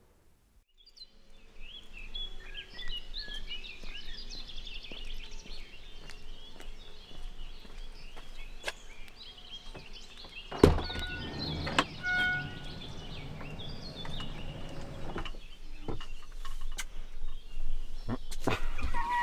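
Birds chirping and singing steadily. About ten seconds in, a thunk as the camper van's power sliding door unlatches, then the door runs open for about five seconds, with a couple of short beeps.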